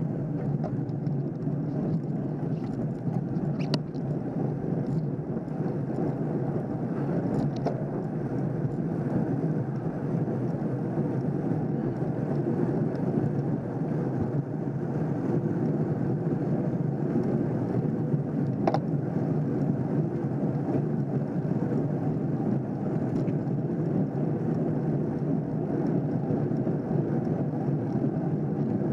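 Steady, low road and wind noise from a road bike ridden uphill in a pack, picked up by a camera mounted on the moving bike, with a few faint clicks.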